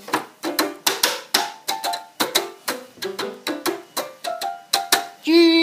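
Portable electronic keyboard banged haphazardly with a wooden stick and hands: irregular sharp strikes, about three or four a second, each sounding a short clump of notes. Near the end a held, wavering note comes in and is the loudest sound.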